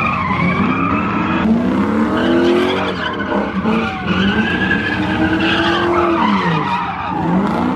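Car doing donuts: the engine revs up and down in long repeated sweeps while the spinning rear tyres squeal and skid on the asphalt.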